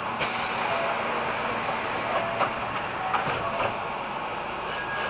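A sudden hiss of compressed air from a Hankyu 8000 series train standing at a station platform, with a few clicks and knocks through it. The hiss eases near the end, when a thin high steady tone comes in.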